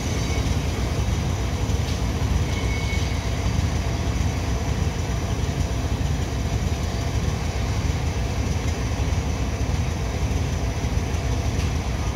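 Diesel locomotives running with a steady low rumble.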